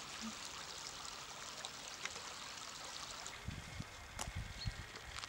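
Small shallow stream running over stones: a steady, even rush of water. From about three and a half seconds in, irregular low bumps join it.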